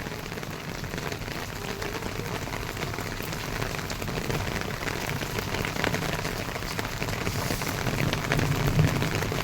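Heavy rain falling: a steady hiss of rainfall with many small drop ticks, growing slightly louder near the end.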